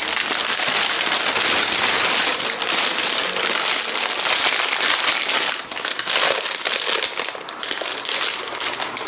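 Plastic packaging rustling and crinkling as a packet of gingerbread cakes is pulled out and handled, a dense crackling rustle that eases briefly twice.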